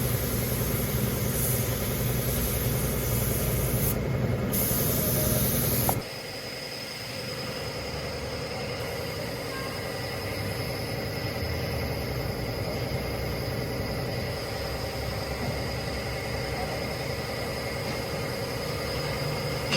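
Truck engine running steadily with a heavy low rumble. About six seconds in, the sound cuts off abruptly to a quieter steady mechanical hum with a faint high whine.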